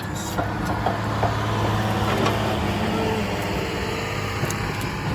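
A steady engine-like hum, with a few light clicks in the first couple of seconds.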